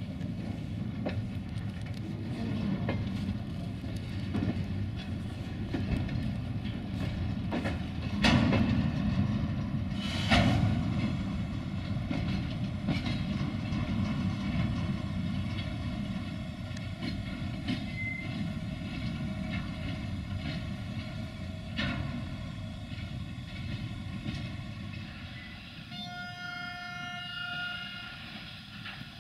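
Covered goods wagons rolling slowly along the track during a shunting move, wheels rumbling steadily with sharp clanks about 8 and 10 seconds in. A short high pitched tone sounds near the end.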